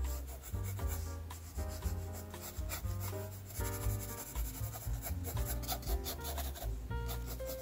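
Pencil scratching and rubbing on sketchbook paper in short strokes, over background music with a deep bass line.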